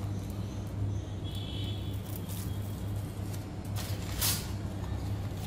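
Steady low mechanical hum, with a few light clicks and a short hiss about four seconds in.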